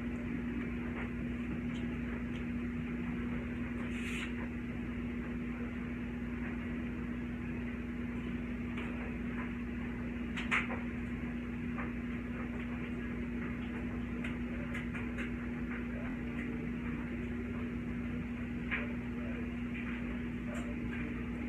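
A steady low hum over room noise, with a few faint knocks, the sharpest about ten seconds in.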